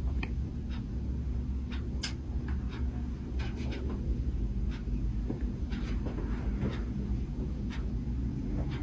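Scratchy rustling of hands and clothing with scattered small clicks as the patient is handled on the treatment couch, over a steady low hum.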